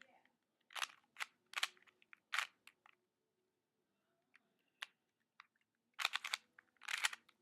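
Plastic Rubik's Cube being twisted fast by hand: bursts of sharp clicks and clacks as the layers turn, a short pause in the middle, then a dense flurry of turns near the end.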